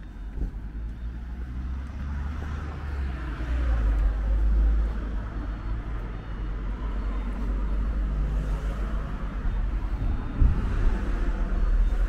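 City street traffic: cars passing on the road, their tyre hiss swelling twice, over a constant low rumble.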